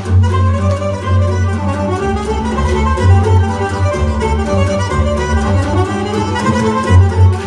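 Transylvanian folk dance music from the Târnave valley: a fiddle plays a quick dance tune over a steady, pulsing bass accompaniment.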